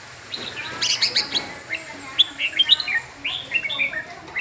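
Red-whiskered bulbul singing: a quick run of short, bending whistled notes that starts about a second in.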